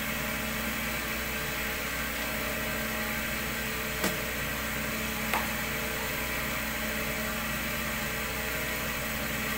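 Cotton candy machine's motor running steadily, spinning the jumbo cast-aluminium spinner head with a low even hum. The heat is off and the head is left spinning to throw out the last of the sugar. Two short sharp clicks come about four and five seconds in.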